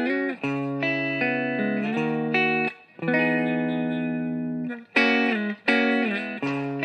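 Background music: a guitar tune with held notes and some distortion.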